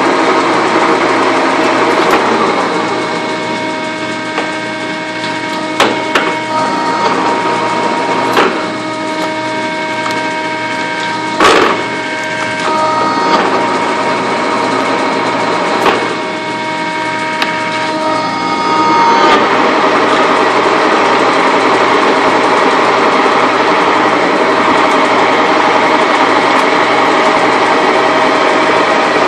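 Lodge & Shipley engine lathe running under power: a steady mechanical whir with several steady whining tones from the headstock gearing, broken by a few sharp clicks. About two-thirds of the way through the tones drop away and the running turns into a louder, denser whir.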